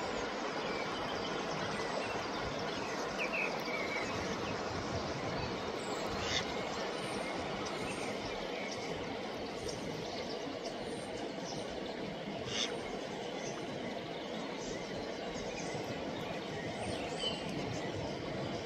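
Steady rush of flowing river water, with a few faint bird chirps and two brief sharp clicks, about six and twelve seconds in.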